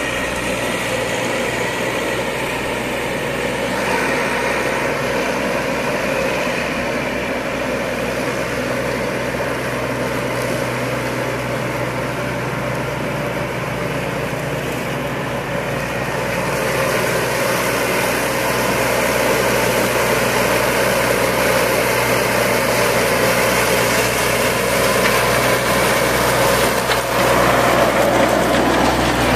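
Baroness LM320AF ride-on four-wheel-drive mower running steadily while its front cutting deck mows through tall dry grass. The sound grows louder and brighter about halfway through.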